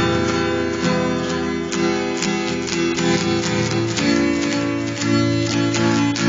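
Music: a strummed acoustic guitar with a steady rhythm.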